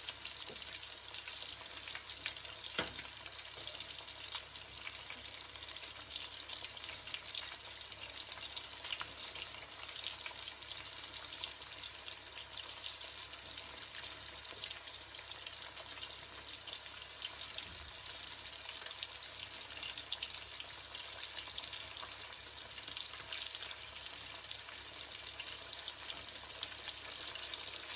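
Flour-dredged salmon and shrimp pieces frying in hot oil: a steady sizzle full of small crackling pops, with one sharper pop about three seconds in.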